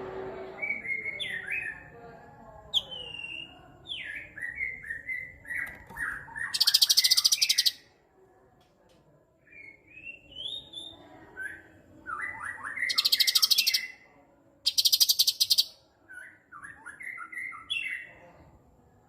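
Cucak cungkok singing: quick runs of chattering chirps, broken by three loud, harsh buzzing bursts and a short pause about eight seconds in.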